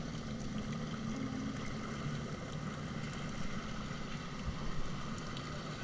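Jet ski engine running steadily, a continuous low drone.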